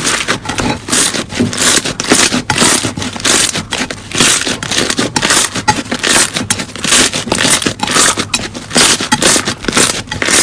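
Slime being squeezed and pressed by hand, giving a rapid run of crackling, crunching pops, several a second.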